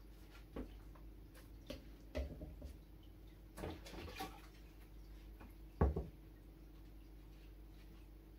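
Scattered small knocks and clicks with light water drips as things are handled in and around an aquarium during cleaning, over a faint steady hum. A louder thump comes a little before the end.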